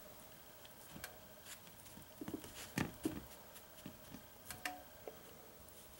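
Faint, scattered taps and rustles of fingers pressing and turning a piece of pork in flour on a paper plate.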